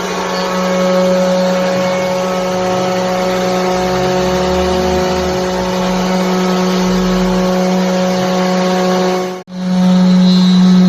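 CNC router spindle running at a steady pitch while cutting a wood design, with a brief break about nine and a half seconds in before the same hum resumes.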